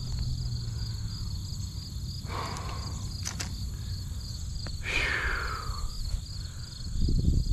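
Insects chirping in a steady, rapid pulsing trill over a low rumble of wind on the microphone, with two brief noisy sounds, about two and a half and five seconds in.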